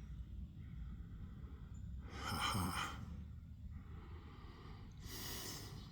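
A man breathing out heavily twice, close to the microphone: one long breath about two seconds in and a softer one near the end.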